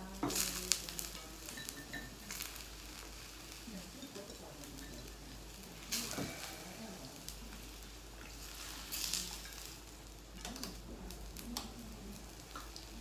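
Chopsticks and tableware clinking against bowls and dishes every few seconds, over the faint steady hiss of a hot pot simmering on a tabletop burner.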